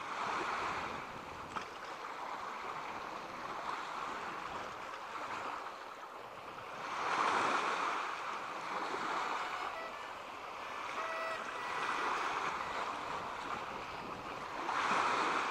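Sea waves washing in: a steady rush of surf that swells about halfway through and again near the end.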